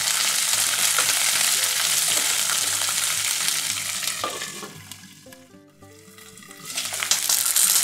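Peanuts and green chillies sizzling in hot oil in a frying pan while a spatula stirs them: a dense, steady hiss. About four and a half seconds in, the sizzle drops away sharply for about two seconds while a glass lid covers the pan. It then swells back loud near the end.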